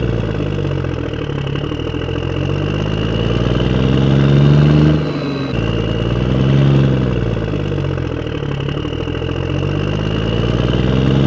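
An engine revving up and down in slow swells, its pitch rising and falling, with a sudden cut about five and a half seconds in where the same swell starts over.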